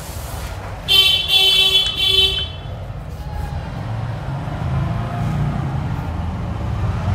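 A vehicle horn honks three short times in quick succession about a second in. A low traffic rumble swells afterwards.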